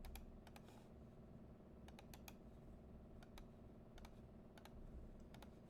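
Faint, irregular clicks of typing on a computer keyboard, a dozen or so keystrokes spread unevenly over low room hum.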